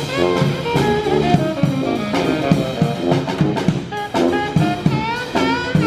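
Jazz music in a swing style: saxophone and brass playing a melody with sliding notes over a steady drum-kit beat.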